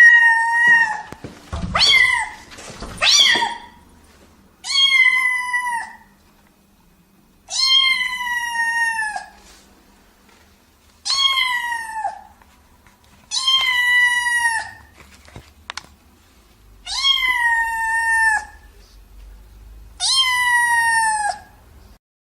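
Domestic cat meowing repeatedly, about nine drawn-out meows, each holding its pitch and then dropping at the end. The first few come close together, then one every two to three seconds.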